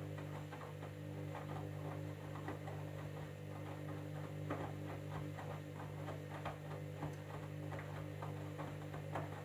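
Candy washing machine running on a jeans cycle: a steady low hum with irregular clicks and light knocks over it. Hum and clicks stop suddenly near the end.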